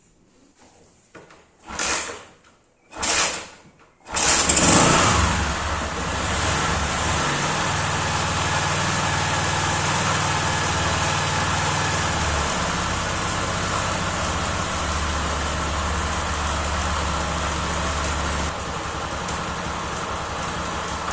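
A 2003 Honda CG Titan's single-cylinder four-stroke engine gives two short bursts as it is cranked, then catches about four seconds in and runs steadily, a little quieter near the end. It has just come back to life but will not hold an idle, which the owner puts down to a dirty carburetor.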